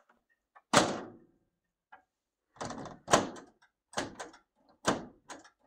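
Maytag over-the-range microwave door being swung and pushed shut again and again, knocking and clattering against the cabinet in a series of sharp knocks. The door won't latch shut: its door latch is faulty.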